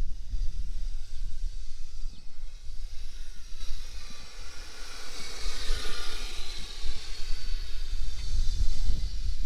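Kyosho Blizzard RC snow vehicle's electric motor and drivetrain whining as it drives through snow, building from about four seconds in. Low wind rumble on the microphone underneath.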